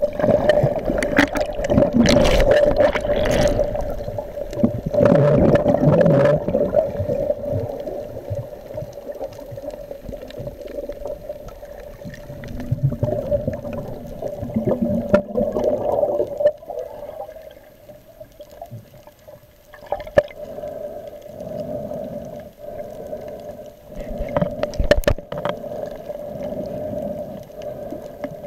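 Underwater water noise picked up through an action camera's housing as a finned swimmer moves over a reef: gurgling and bubbling, loudest in the first few seconds and again about halfway through, with a few sharp clicks later on and a steady faint hum underneath.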